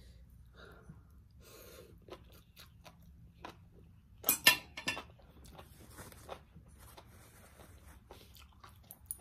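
A person chewing mouthfuls of grilled fish close to the microphone, with scattered short wet clicks and a cluster of sharper, louder clicks a little past four seconds in.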